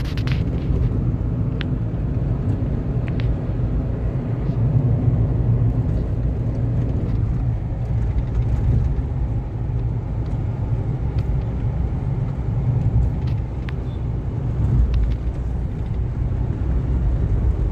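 Steady low rumble and road noise of a moving road vehicle, heard from inside its cabin, with a few faint clicks or rattles.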